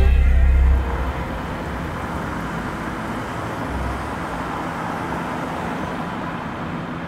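Street traffic ambience: a steady hum of road traffic. It follows a deep bass note from the end of a hip hop track that dies away within the first second.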